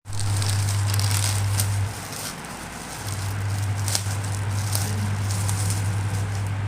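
Plastic packaging crackling and rustling as a parcel is unboxed, over a steady low hum that cuts out for about a second partway through.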